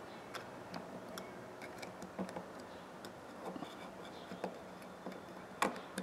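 Faint small metal clicks and scrapes of needle-nose pliers working a spring into the frame of an 8-inch pipe wrench during reassembly, with a sharper click near the end.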